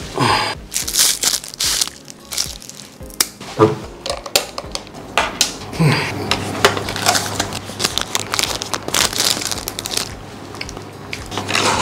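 Plastic takeaway food packaging crinkling and crackling as it is handled and opened, with irregular sharp clicks and snaps of plastic.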